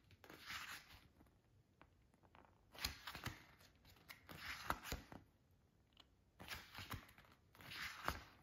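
Pages of a softcover booklet being turned by hand: paper rustling in about five short bursts, with a few light clicks between them.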